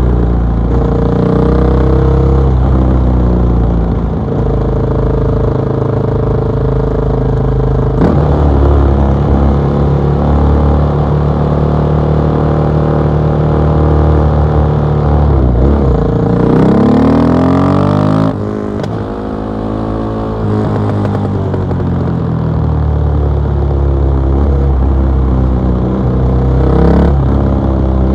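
KTM 660 SMC supermoto's single-cylinder engine through an Akrapovic exhaust, under way at steady revs, then revving up sharply about sixteen seconds in and backing off shortly after before settling back to steady running.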